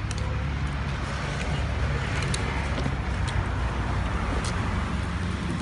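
A steady low motor hum, with a few light clicks over it.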